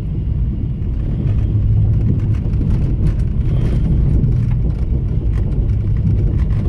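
Steady low engine hum and road rumble of a car, heard from inside the cabin while driving.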